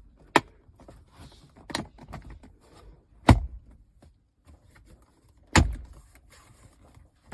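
Plastic dash trim being pressed back into a Toyota Prado 150's dashboard: four sharp clicks and knocks about one to two seconds apart as the clips snap in, the loudest about three seconds in, with light handling rustle between.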